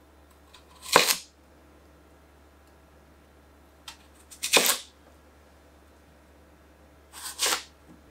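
A kitchen knife slicing a daikon radish into thick rounds on a wooden cutting board: three crisp chops about three seconds apart, each a short crunch of the blade through the root down onto the board.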